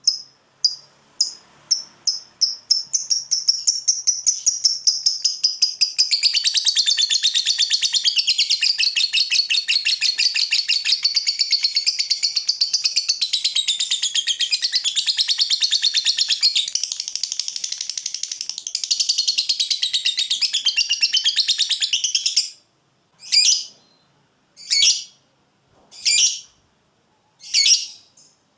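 Lovebird ngekek: sharp, high chirps that speed up over the first few seconds into one long, rapid chattering trill of about twenty seconds. The trill cuts off and gives way to single calls about a second and a half apart.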